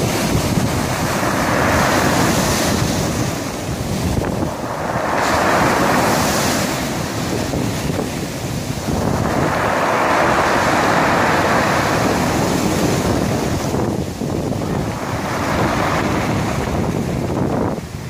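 Sea waves breaking and washing up over a pebble beach, the surf swelling and easing about four times.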